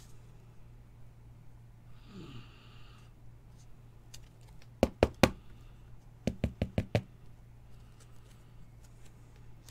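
Sharp knocks on a hard tabletop: three loud ones about five seconds in, then a quick, even run of about six a second later, over a steady low hum.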